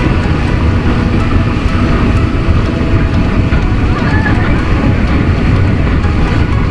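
Wind buffeting an action camera's microphone, with wake and spray water rushing past a banana boat towed at speed: a loud, steady low rumble.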